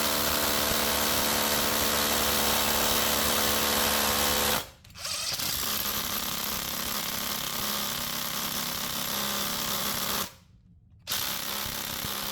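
Cordless impact driver hammering under load in a torque test. It runs steadily, stops briefly about five seconds in, runs again, and stops for about a second near the end before starting once more.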